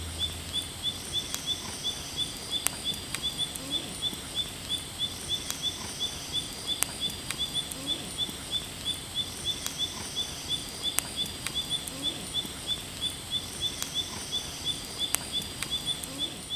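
Night-time insect chorus of crickets chirping in a steady rhythm, about three chirps a second. A higher buzzing swells and fades every four seconds or so, with a few sharp clicks scattered through it. The last of the song's music dies away in the first moment.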